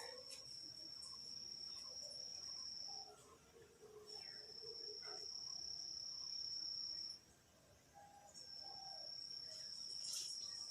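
A cricket trilling: a steady, high-pitched, unbroken tone that runs in long stretches of about three seconds, with short pauses between them and a few faint clicks near the end.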